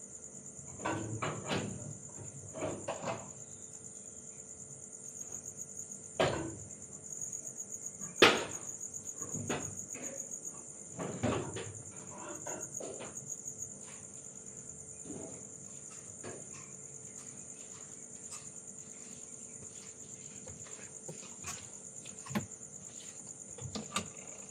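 Evening insects calling in a steady, continuous high-pitched chorus. Scattered knocks and clatters come through it, most in the first half, the loudest about eight seconds in.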